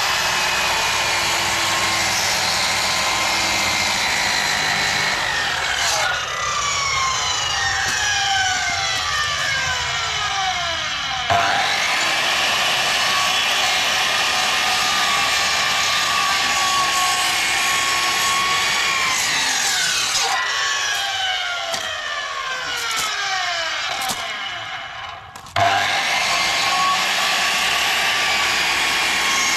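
Makita HS0600 270 mm circular saw cutting through a timber sleeper, its motor running under load. The sleeper is cut part-way from one side and then from the other, to avoid kickback. Twice the motor's pitch falls away, and the full cutting sound comes back abruptly, about 11 seconds in and again near the end.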